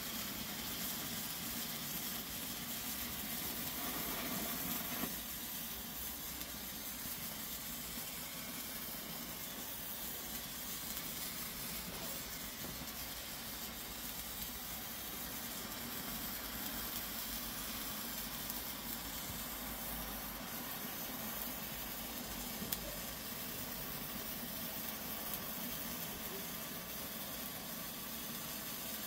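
Hand-held red Bengal light (Weco Zauber Lichter) burning with a steady hiss and sizzle as it throws off sparks.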